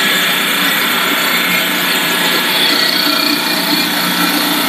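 Puffed-cereal extrusion production line running: steady, loud machine noise with a continuous whine and hum from the running machinery.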